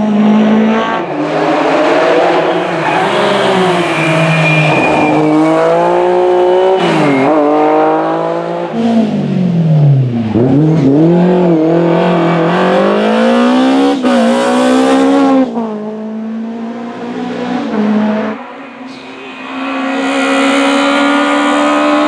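A BMW E30 M3 rally car's engine revving hard, its pitch climbing and falling through gear changes. About halfway in it drops sharply as the driver lifts off for a bend, then climbs again as the car pulls away. Near the end a second, smaller rally car, a Fiat 127, comes on with its engine held at high revs.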